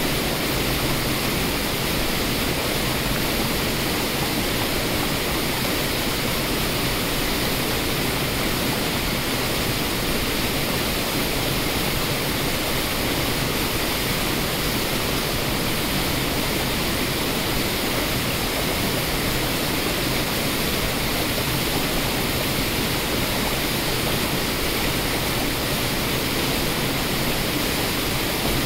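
Water rushing down waterfalls and rapids over rock: a steady, unchanging rush with no single splashes standing out.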